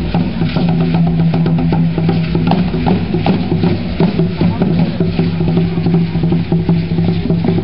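Drumming from a passing Aztec dance troupe: a large hand drum beating with many quick rattling clicks, over a steady low hum.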